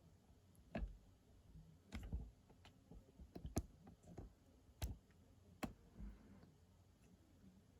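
Light, scattered clicks and taps, about ten of them at uneven intervals and bunched in the middle, against near-silent room tone.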